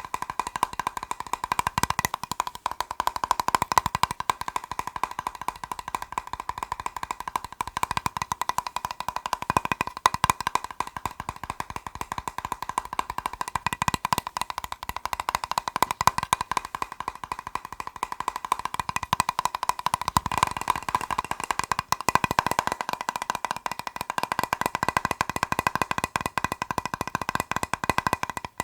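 Fast tapping on a plastic box: a rapid, continuous stream of sharp taps with a steady ring from the box.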